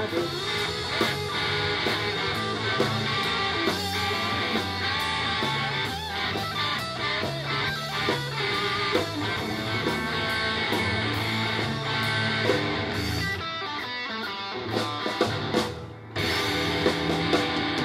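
Live rock band playing an instrumental passage on electric guitars and drum kit, with no singing. The sound drops away for a moment near the end, then the band comes back in.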